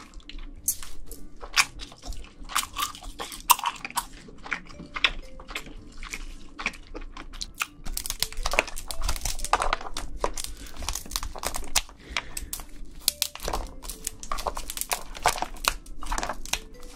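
Close-miked eating and shelling of steamed red snow crab: chewing the leg meat, with kitchen scissors snipping through the shells and the shells cracking. It comes as a dense run of short crackly clicks and crunches.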